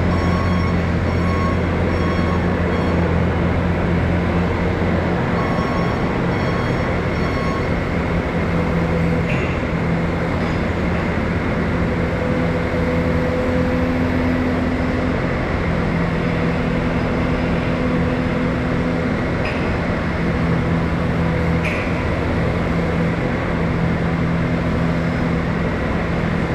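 Bobcat S530 skid steer's diesel engine running steadily, its note shifting a few times as the machine is worked. An intermittent beeping at about two beeps a second sounds twice in the first several seconds.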